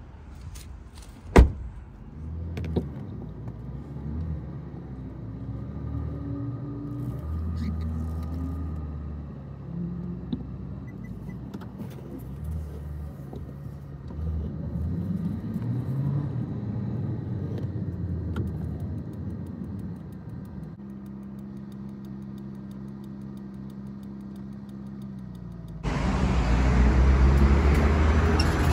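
Car running as it is driven, its engine pitch rising and falling, with a sharp thump about a second in. The engine settles to a steady hum, then a louder rushing noise comes in suddenly near the end.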